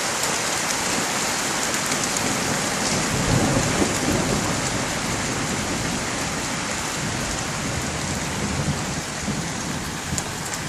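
Heavy rain hissing steadily, with a long roll of thunder. The thunder builds about three seconds in, is loudest for a moment, then rumbles on more quietly for several seconds.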